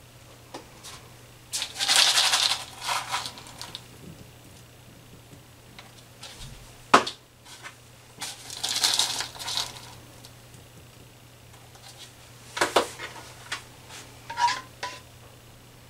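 Pastry-making noises on a floured countertop: two spells of rustling, scraping noise, a sharp click about seven seconds in, and a few knocks with a short clink near the end, as dough rounds are cut and a plastic tub of flour is handled. A faint steady hum runs underneath.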